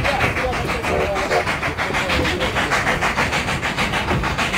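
Narrow-gauge steam train heard from an open passenger car: a rapid, even beat from the working locomotive and its cars running over the rails, with a brief voice about a second in.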